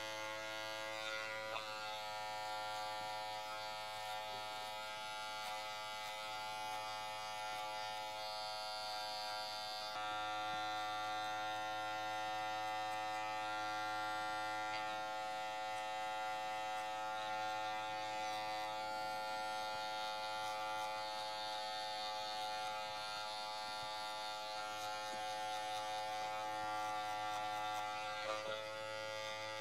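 Electric hair clippers buzzing steadily as they cut short hair on the back of the head and neck, with small shifts in pitch now and then.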